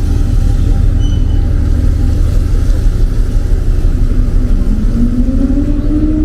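A boat engine running with a steady low rumble. Its pitch rises over the last couple of seconds as it speeds up.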